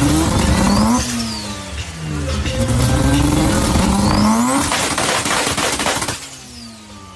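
A parked car's engine being revved through its exhaust: several blips that rise and fall in pitch, the longest and loudest about two-thirds of the way through. It then drops back to a lower, quieter idle.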